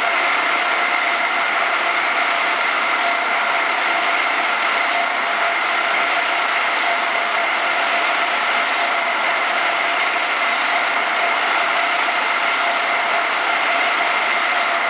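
Circular loom for woven plastic bags running at speed, its shuttles circling the ring: an even, loud mechanical clatter with a constant high whine.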